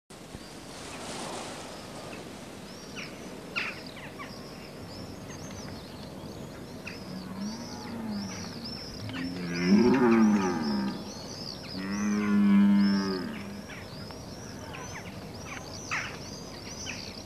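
Red deer stags roaring in the autumn rut: a few long, low calls, the loudest about halfway through, over steady high chirping of small birds.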